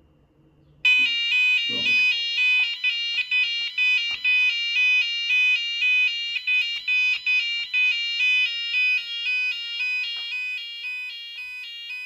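Abacus 8R intruder alarm's electronic sounder starting abruptly about a second in and sounding a loud pulsing alarm tone that alternates in pitch about twice a second. The panel is in tamper alarm after being powered back up, the default key sequence having failed.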